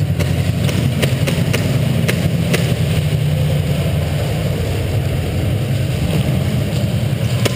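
Steady low rumble throughout, with scattered sharp clicks of airsoft gunfire at irregular intervals.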